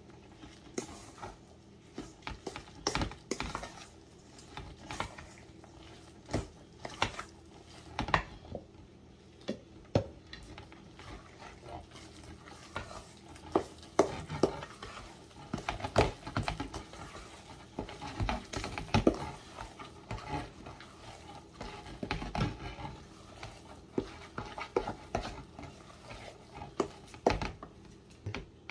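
Cornbread batter being stirred in a mixing bowl, the utensil knocking and scraping against the bowl in irregular clicks.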